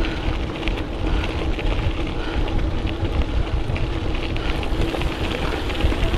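Gravel-bike tyres crunching and crackling over a gravel path, with wind buffeting the microphone as a heavy low rumble and a steady hum under it.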